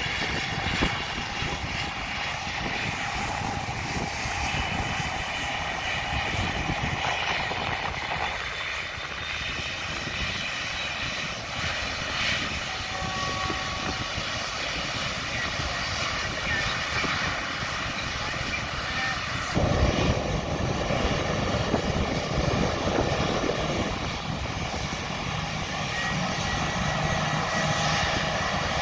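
Steady jet whine and rumble from an easyJet Airbus airliner being pushed back by a tug on the apron. The low rumble gets noticeably louder about twenty seconds in.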